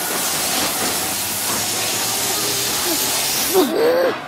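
Steady, loud hiss of a water-jet spray sound effect standing for a water cannon, cutting off suddenly near the end. A voice gives a few short cries as it stops.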